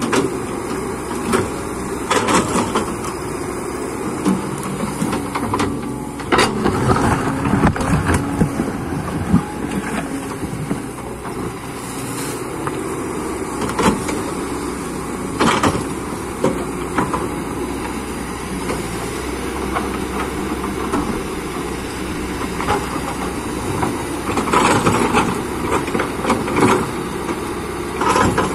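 Excavator's diesel engine running steadily under hydraulic load, with intermittent knocks and scrapes as the bucket gathers soil and stones.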